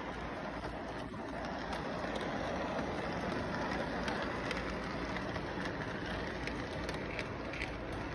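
Toy train running along its track: a steady rumbling whir with scattered light clicks from the wheels and cars.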